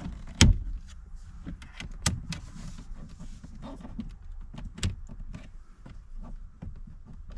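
Plastic pry tool levering out the dash trim bezel of a 2022 Dodge Challenger: a run of sharp plastic clicks and creaks as the clips are stressed, the loudest about half a second in, with more around two and five seconds.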